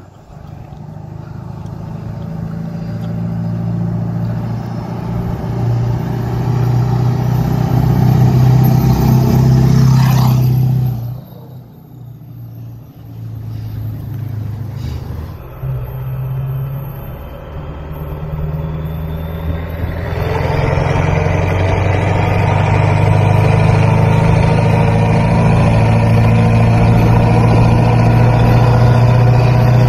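Ford 7.3 Powerstroke turbo-diesel V8 under load, towing a trailer with a mini excavator of about 12,500 lb: it grows louder as the truck comes closer for the first third, then, after a cut, runs loud and steady with a high turbo whistle rising about two-thirds of the way through.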